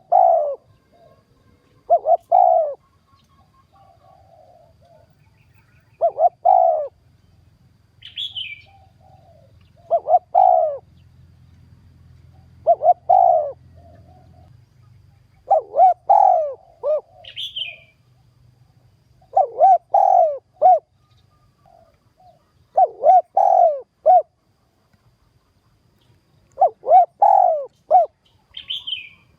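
Spotted dove cooing again and again: short low phrases of two to four notes, repeated every two to four seconds. This is the provoking call used as a decoy to lure wild doves to a trap. Short high chirps from another bird come three times, about a third of the way in, a little past halfway and at the very end.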